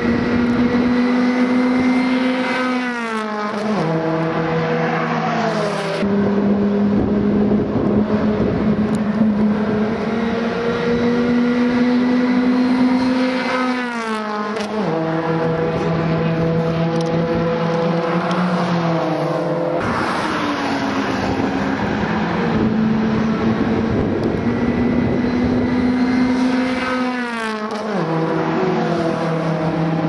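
Race-prepared Honda Fit's engine and exhaust at speed, heard from outside the car. A steady, loud engine note climbs slowly, then drops sharply three times and builds back up each time.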